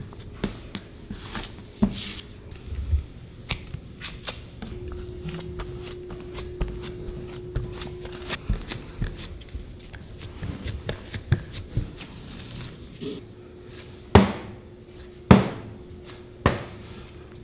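Metal bench scraper scraping and tapping pie dough across a stainless steel worktable: a busy run of short scrapes and clicks, with two louder knocks near the end. A faint steady hum sits underneath for a few seconds.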